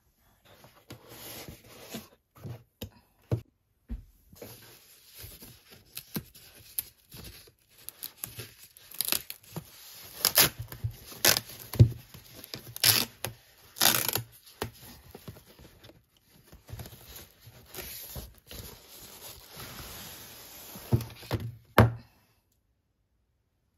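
Packaging wrap rustling, crinkling and tearing as it is pulled open by hand, with several sharp, loud rips in the middle.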